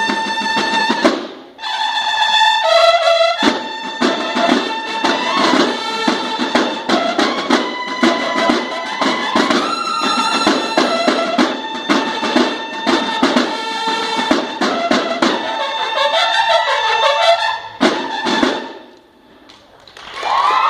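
A banda de guerra of bugles and snare drums playing: bugles sounding held notes over rapid drum strokes. The music breaks off briefly just over a second in, then stops with a final stroke about two seconds before the end.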